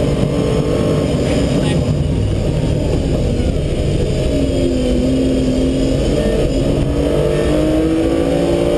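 BMW M3 Compact rally car's engine heard from inside the cabin at racing pace, over a steady roar of road and tyre noise. The revs drop and hold low for a bend about four seconds in, then climb through several quick upshifts on the following straight.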